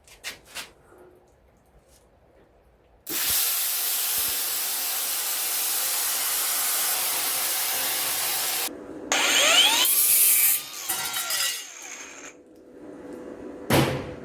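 A power cutting tool cuts sheet metal for a patch panel, giving a loud steady noise for about five and a half seconds. It then runs free, its whine rising, holding and falling away. There is a short loud burst near the end.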